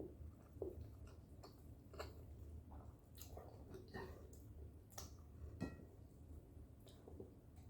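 Faint eating sounds, hands-on with a meal of rice and fish: soft chewing with scattered small clicks and mouth smacks at irregular intervals, over a low steady hum.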